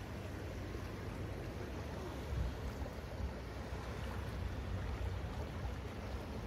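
Passenger ship's propeller wash churning the water, with a steady low engine rumble underneath.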